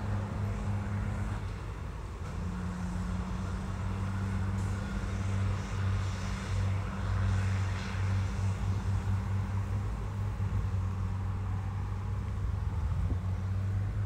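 Heavy diesel engine of earthmoving machinery, a bulldozer or dump truck, running steadily with a low, even hum.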